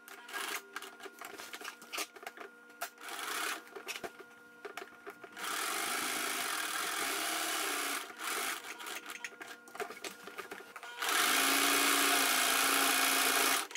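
Electric sewing machine stitching through layers of cloth in two steady runs: one about five seconds in lasting a couple of seconds, and a louder one near the end. Between the runs, small clicks and fabric being shifted under the presser foot.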